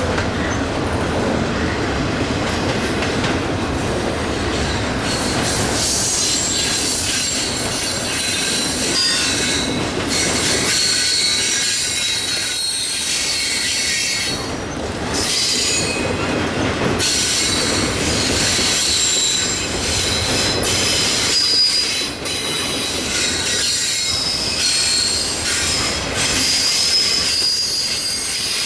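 Cars of a long Union Pacific train rolling past at track side, steel wheels rumbling and clattering on the rail, with high-pitched wheel squeal that rises and fades throughout.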